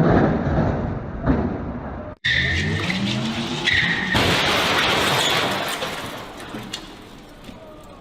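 Rumbling noise that cuts off about two seconds in. A car engine then revs up with short tyre squeals, followed by a loud rush of skidding noise that fades away.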